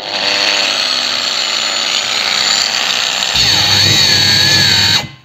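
PROCRAFT PW 1100 ES 125 mm angle grinder with a wire brush fitted, running at its lowest speed setting and pressed against the workbench under load. Its whine bends down as the load comes on about three seconds in. Near the end it cuts out abruptly as its overload protection shuts it off.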